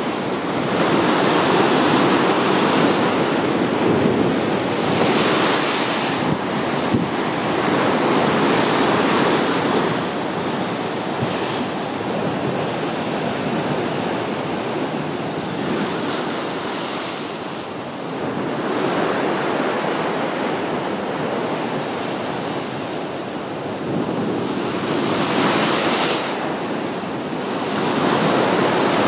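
Sea waves breaking and washing against a rocky shore: a continuous rushing surf that swells and ebbs, with louder surges in the first few seconds and again near the end.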